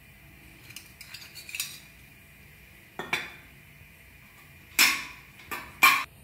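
Stainless-steel tumblers and a spoon clinking as they are handled and set down on the counter. There are light taps in the first two seconds, then about five sharp metallic clinks, the loudest near the end.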